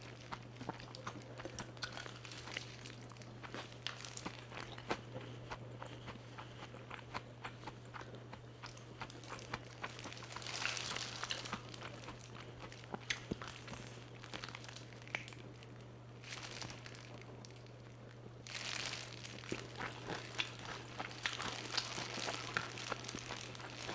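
Close-up eating sounds of crispy fried chicken: repeated crunchy bites and chewing, coming in bunches of several crunches at a time, over a steady low hum.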